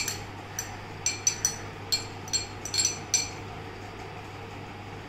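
A metal spoon clinking against a small glass bowl while chopped carrot is scraped out into a glass mixing bowl: about ten sharp, ringing taps in quick, uneven succession during the first three seconds, then a steady low hum.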